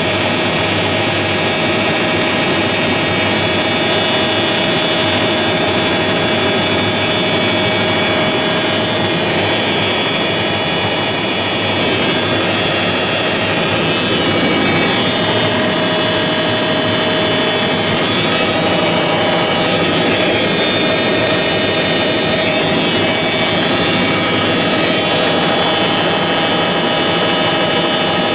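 Helicopter in steady flight, heard from inside the cabin: a constant drone of engine and rotors with a steady whine running through it.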